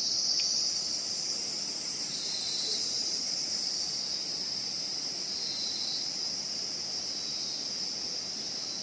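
Steady insect chorus: a continuous high-pitched shrill drone, swelling slightly now and then.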